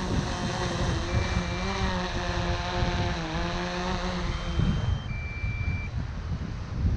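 Strong wind buffeting the microphone over a steady, slightly wavering hum, while a two-tone electronic beep, high then lower, sounds twice.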